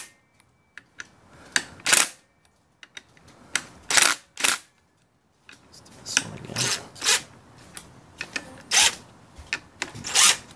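Cordless impact driver run in about seven short bursts, loosening the clutch spring bolts a little at a time in a crisscross order because the spring plate is under pressure.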